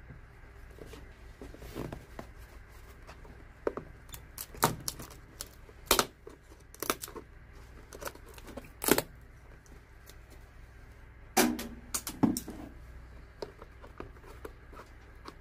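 Steel screwdriver prying and scraping the broken wooden shank and glued cork out of a shoe's insole cavity: irregular sharp scrapes and cracks as the old wood and glue give way.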